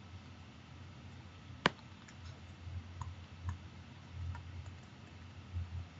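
Stylus pen tapping and clicking on a tablet screen during handwriting: one sharp click about a second and a half in, then a few faint ticks, over a low steady hum.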